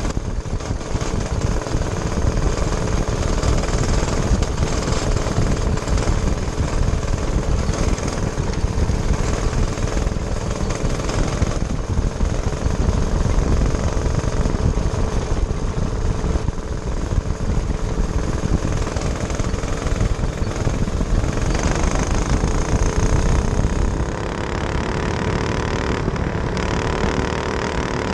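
Racing kart engine running hard on a dirt oval, heard from on board with heavy wind noise over the microphone. About 24 seconds in, the wind noise eases and the engine's pitch is heard clearly rising and falling.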